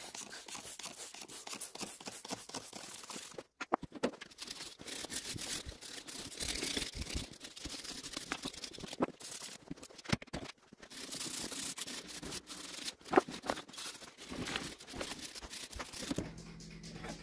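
Brushing and spraying on the greasy crankcase of a Kohler Magnum M18 engine: a rasping scrub with many short strokes as grime is cleaned off. It comes in several short clips joined with abrupt breaks.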